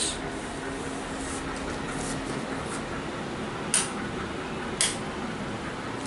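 Room light switches flipped off: two short sharp clicks about a second apart, over a steady background hum.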